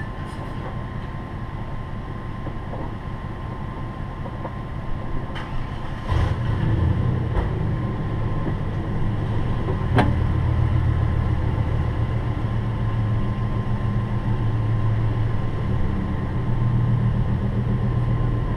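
Motor vehicle engine idling: a steady low hum that grows louder about six seconds in, with a few sharp clicks, the loudest about ten seconds in.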